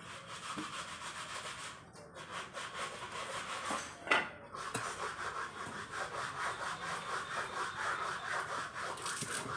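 Stone roller (nora) rubbed back and forth over a flat stone grinding slab (shil), crushing dry-roasted whole spices, with a repeated scraping stroke that grows steadier and louder from about five seconds in. There is one sharp knock about four seconds in.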